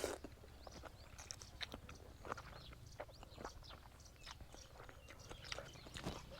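Close-up chewing and crunching on chicken feet: a scattered string of short, crisp mouth clicks and crunches over a low, steady hum.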